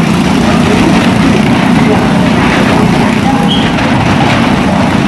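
Two small motorcycles circling the vertical wall of a wooden wall-of-death drum, their engines running loud and steady.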